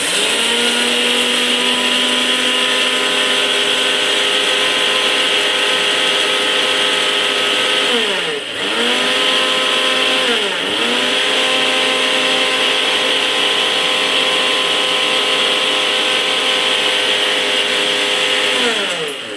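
Indian kitchen mixer grinder (mixie) running at full speed, grinding dry coriander seeds, black peppercorns and dried ginger into a fine powder. Its whine dips and winds back up twice around the middle, and winds down near the end as it is switched off.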